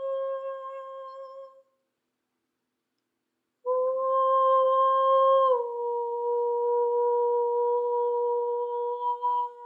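A voice humming long held notes. The first note fades out, there are about two seconds of silence, then a new note starts abruptly, steps slightly down in pitch and holds steady.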